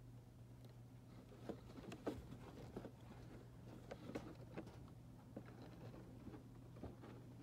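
Quiet indoor room tone with a steady low hum and scattered faint clicks and taps.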